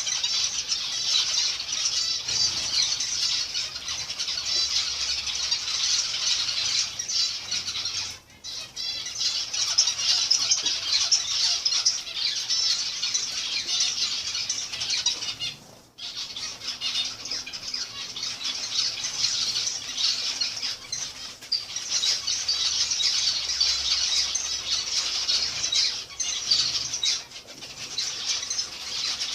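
A flock of zebra finches calling continuously, a dense chatter of many overlapping high, nasal calls that drops out briefly twice.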